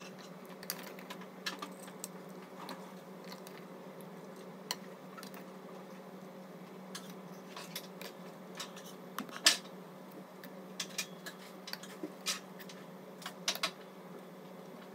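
Scattered light clicks and taps of a serving spoon against the pot and a ceramic plate as pulao rice is served, the sharpest about nine and a half seconds in, over a steady low hum.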